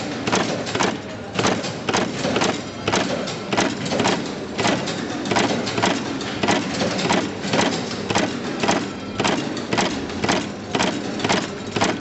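Sai Paradise terminal crimping press cycling continuously, a sharp clack at each stroke about twice a second as it crimps terminals from a strip.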